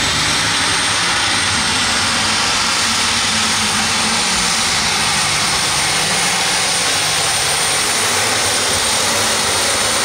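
Light super stock pulling tractor under full power, its turbocharged alcohol-burning engine running loud and steady with a high, held turbo whine over the roar.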